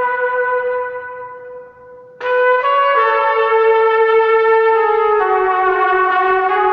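Background music of sustained, brass-like held notes. A held note fades away, then about two seconds in a new phrase starts abruptly, its notes stepping downward in pitch.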